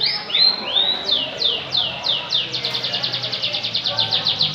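Domestic canary singing a trill of repeated high downward-sweeping notes. It starts at about four notes a second, speeds up into a rapid roll of about ten a second around halfway through, then slows again near the end.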